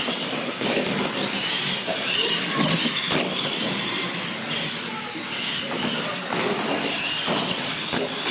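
Radio-controlled monster trucks racing on concrete: electric motors and gears whining, rising and falling with the throttle, with a few knocks as the trucks hit the ramps and land.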